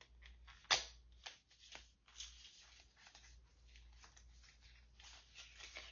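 Hands handling small objects close by: light rustling and scraping with a series of small clicks, one sharper click under a second in.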